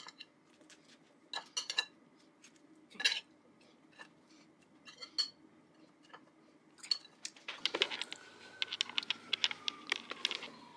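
Metal spoon tapping and scraping on a ceramic plate while avocado is spread on toast, in scattered light clinks. Near the end a denser run of clicks and knocks, with a faint falling tone underneath.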